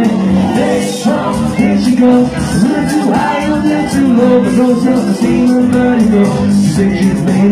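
Man singing live into a handheld microphone through a PA over loud backing music, holding long notes and sliding between pitches.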